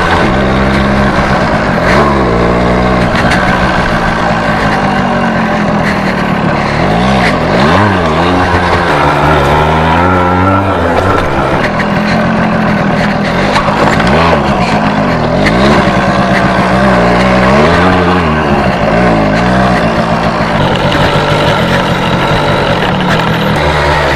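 A 100cc two-stroke motorcycle engine being ridden, revving up and falling back over and over, its pitch rising and dropping every second or two.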